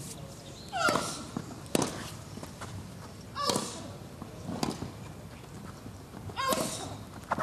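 Tennis rally: a racket strikes the ball about every one and a half seconds, alternating between the two ends. Three of the strokes come with a short grunt from the player hitting.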